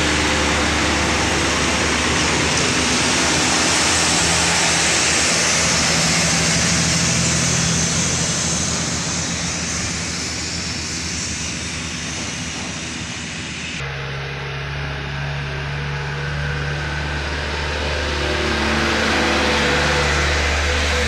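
Diesel light trucks passing close by through a bend, engines running with tyre and road noise. The sound changes abruptly about 14 seconds in, then swells again near the end as a truck comes close.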